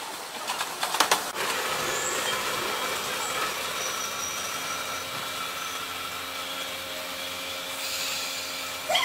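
Electric train running over station points: a few sharp clacks of the wheels over the rail joints in the first second or so, then a steady running hiss with a faint high squeal around the middle.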